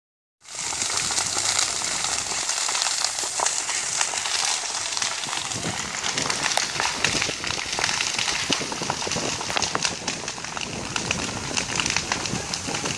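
Wildfire burning through dry undergrowth: continuous crackling with many sharp pops over a steady hiss.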